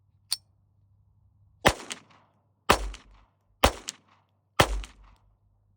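Browning Buck Mark Camper .22 LR pistol firing four shots of Blazer ammunition about a second apart, each with a short ringing tail, the pistol cycling between shots. A single sharp click comes just before the first shot.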